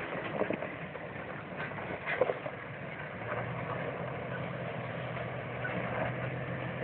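Toyota FJ Cruiser's 4.0-litre V6 running at low revs as it crawls over boulders, its hum growing steadier and stronger about three seconds in. A couple of short knocks sound in the first half.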